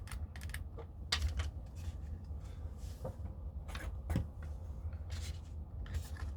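Irregular small clicks and taps from the small screws and plastic parts of an airsoft hi-cap magazine being handled and set down.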